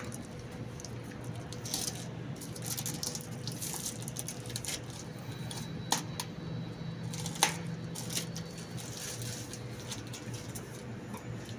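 Clear plastic wrapping crinkling as it is torn and peeled off a new Wabco air dryer cartridge, in irregular rustles, with two sharp clicks from the metal cartridge being handled.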